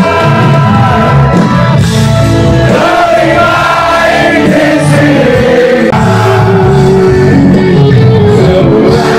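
Live rock band playing with a man singing lead vocals through the PA.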